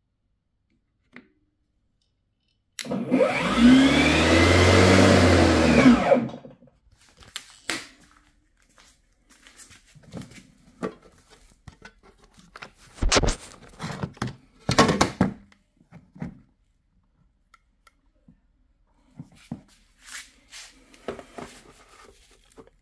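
Cordless Parkside lawnmower's electric motor and blade starting, running for about three seconds and stopping, running on the Parkside 20V battery. After that come a few sharp clicks and knocks as the battery is handled and pulled from the mower.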